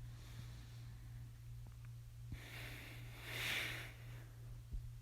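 A person's breath: a soft rushing exhale that swells about two and a half seconds in and fades over a second or so, over a steady low hum.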